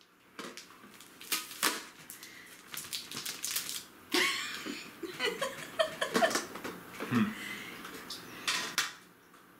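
Packaging being torn open and handled: a run of rips, crinkles and light taps of paper and tape against a cardboard box.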